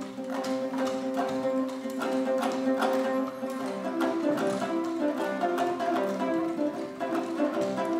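Traditional Kazakh folk music: plucked string instruments, including a table zither (zhetygen) and a long-necked lute, playing a running figure over a sustained drone.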